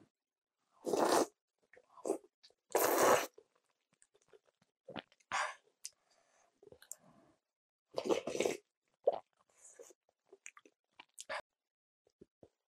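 Close-miked eating of kalguksu noodles from a wooden spoon: several short loud slurps, about a second in, around three seconds and around eight seconds, with wet chewing and small mouth clicks between.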